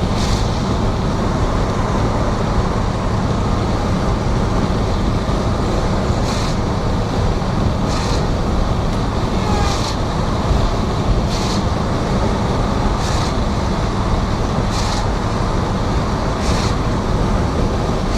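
Steady, loud rain noise, with short hisses recurring every couple of seconds.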